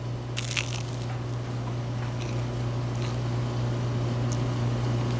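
A bite into crisp, well-toasted avocado toast gives one short crunch about half a second in, followed by faint chewing, over a steady low hum.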